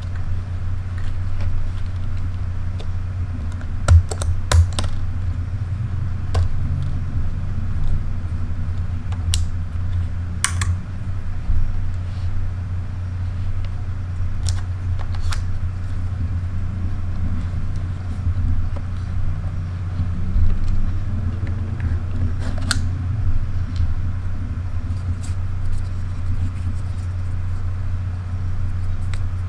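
Two compact cameras being handled, with scattered sharp clicks and taps as their battery doors are opened and the batteries taken out. A steady low hum runs underneath.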